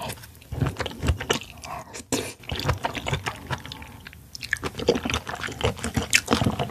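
A mouthful of raw oyster being chewed: a quick run of mouth clicks and smacks, with a brief lull about four seconds in.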